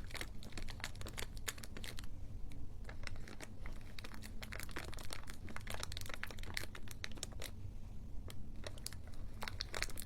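Close-up ASMR crinkling: dense, irregular crackles and clicks with short pauses, over a low steady hum.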